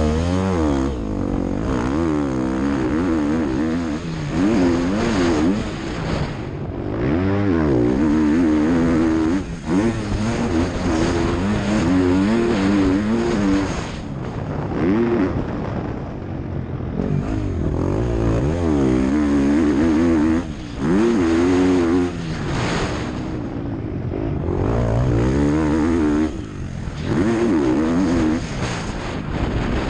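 Motocross bike engine revving hard and running up through the gears, its pitch rising and falling again and again, with the throttle shut off for a moment every few seconds before it picks up again.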